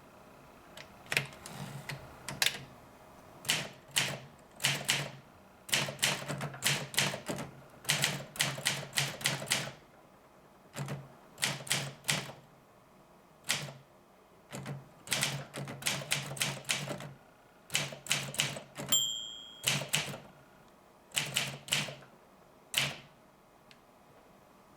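Olympia SM4 manual typewriter typing a sample: keys striking in quick runs with short pauses between them. The margin bell dings once, about three-quarters of the way through.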